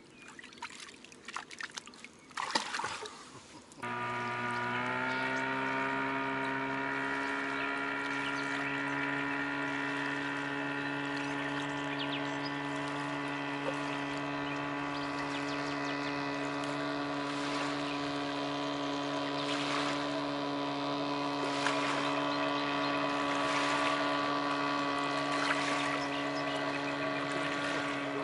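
Water splashing as a small barbel is released by hand. About four seconds in, a steady hum of many sustained tones starts abruptly and holds unchanged, with a few faint clicks over it.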